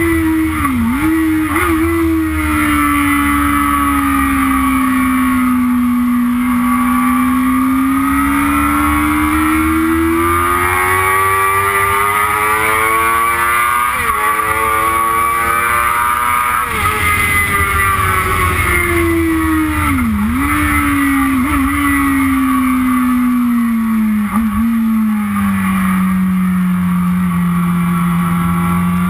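Yamaha YZF-R6's inline-four engine running hard on track, its pitch falling for the first several seconds, rising to a peak about halfway through, then falling to its lowest near the end, with a few brief sharp dips in pitch along the way.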